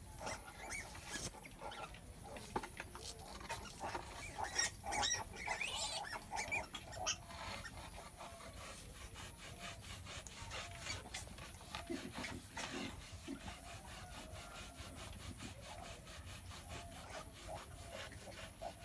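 Scratchy, irregular rubbing of a bamboo stick against a sow's bristly hide, with a few short high squeaks from her newborn piglets about four to six seconds in.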